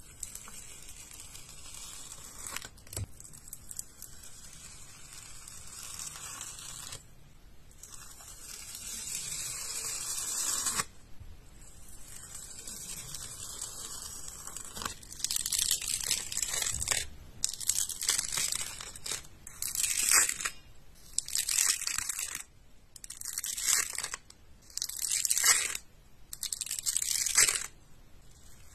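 Thin plastic protective film being peeled off, a crinkly tearing rustle: first in long steady pulls, then, from about halfway on, in a run of short strips about every second and a half.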